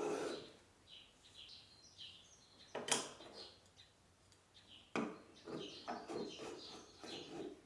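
Pieces of wood being handled: a sharp wooden knock about three seconds in, then another knock followed by scraping and shuffling. Birds chirp faintly throughout.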